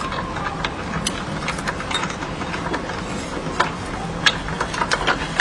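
Plastic parts of a take-apart toy construction vehicle being handled, clicking and rattling irregularly over a steady low hum.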